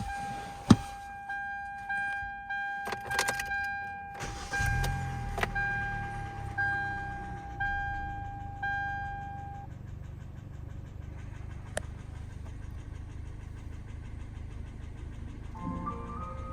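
2013 Hyundai Elantra being started: keys and clicks, a brief crank, then the four-cylinder engine catches about four and a half seconds in and settles into a steady idle. A dashboard warning chime dings about once a second through the first ten seconds. The engine is said to have piston slap.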